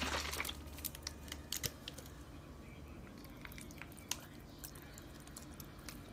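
Plastic squeeze bottle of lemon juice being squeezed and squirted over fish fillets in a glass bowl: faint, scattered small clicks and ticks.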